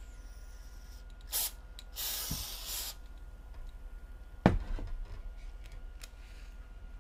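Aerosol can of spray adhesive hissing in two bursts, a short one and then one of about a second. A couple of seconds later comes a single sharp knock, the loudest sound.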